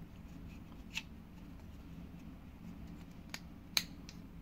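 A few sharp clicks and taps from phone accessories being handled, the loudest near the end, over a steady low hum.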